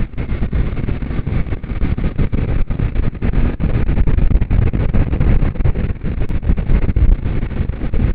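Wind buffeting the microphone of a moving motorcycle, mixed with engine and road noise. The noise is loud and gusty, heavy in the low end.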